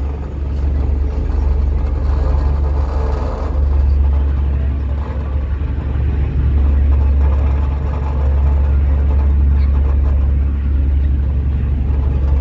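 A ferry's engines running with a steady low drone, mixed with wind and water noise on the open deck.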